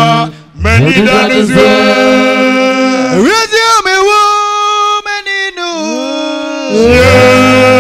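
Male voice singing a church song in long held notes that slide up and down between pitches, with a short break just after the start.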